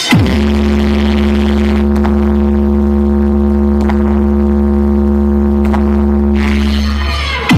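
Sound system speakers playing a loud, steady deep bass tone from a vibration test track, with a steady hum above it. A quick falling pitch sweep opens it, and another comes at the very end.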